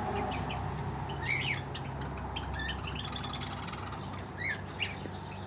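Small aviary birds chirping: a few short, high chirps about a second in and again near the end, with faint twittering in between.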